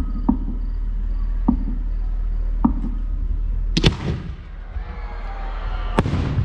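Fireworks launching: after a few faint, evenly spaced knocks, a sharp bang about four seconds in as a comet shell goes up, followed by a crackling hiss as its spark trail rises, then a second sharp bang near the end.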